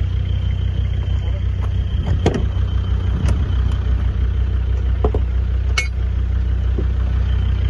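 Mitsubishi Pajero engine idling steadily, heard close, with a few sharp clicks.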